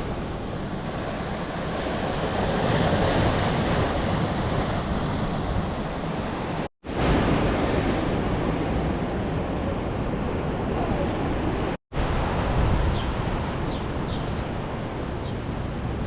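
Sea surf breaking and washing in a strong wind, with wind rumbling on the microphone. The sound cuts out abruptly twice, about seven and twelve seconds in.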